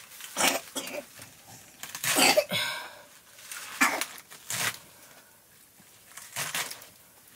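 A knife cutting through crisp stalks of leafy greens against a wooden block: a series of short, sharp crunches at irregular intervals, the longest and loudest about two seconds in.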